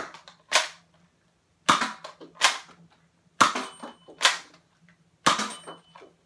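Nerf AccuStrike Quadrant, a spring-powered four-barrel dart pistol, being primed and fired again and again. Sharp plastic clacks from the priming slide and the spring plunger going off come in pairs about three-quarters of a second apart, a new pair roughly every two seconds, seven clacks in all.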